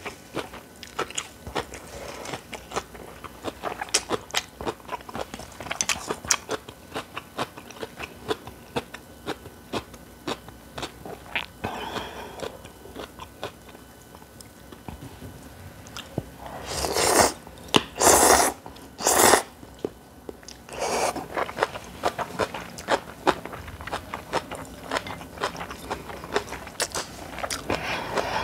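Close-miked eating of Korean cold noodles (naengmyeon) and spicy kimchi: steady crunchy chewing and biting, broken about two-thirds of the way through by three loud slurps in quick succession.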